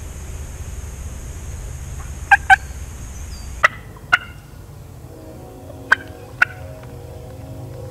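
Turkey calls: six short, sharp notes in three quick pairs.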